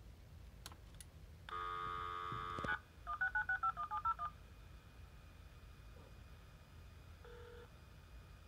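US Robotics 56K modem dialing out through its speaker: a couple of faint clicks as it goes off hook, about a second of steady dial tone, then a quick run of about ten touch-tone (DTMF) beeps as it dials the number. Faint line hiss follows, with a short low tone near the end as the call goes through.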